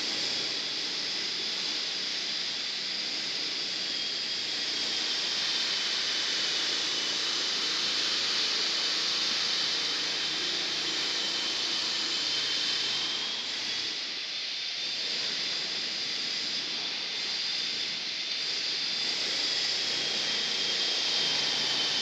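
Steady high-pitched hiss of workshop background noise with a faint whistle that wavers slightly in pitch.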